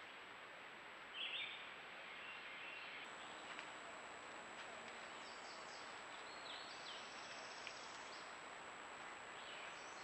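Woodland ambience through a trail camera's microphone: a steady hiss with a few short bird chirps, one about a second in and several more in the second half, over a thin steady high whine.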